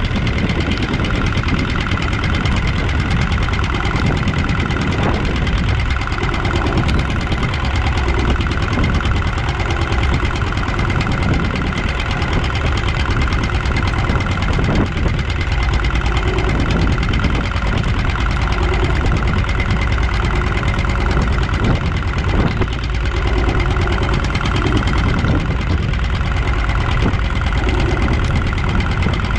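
Small fishing boat's engine running steadily under a constant loud wash of noise.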